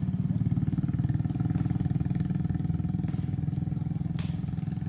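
A small engine running steadily with a fast, even putter, fading slightly toward the end, with a faint click about four seconds in.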